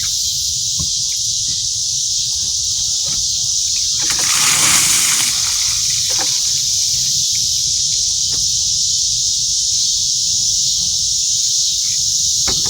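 A bucket of water poured over a person, one splash lasting about a second and a half about four seconds in. A steady high chorus of insects runs underneath.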